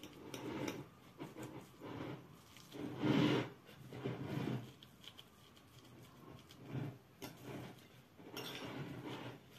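Metal fork mashing boiled potatoes against a ceramic plate: irregular soft squishing and scraping strokes, the loudest about three seconds in.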